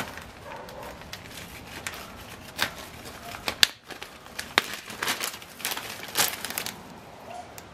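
Thin plastic zip-top bag crinkling as it is handled and opened, in irregular crackles with a few sharper snaps.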